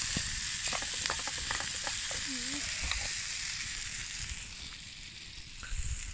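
Sausage, meat and vegetables sizzling in a pot on a camping stove, stirred with a plastic spatula that scrapes and clicks against the pot. The sizzle gets quieter near the end.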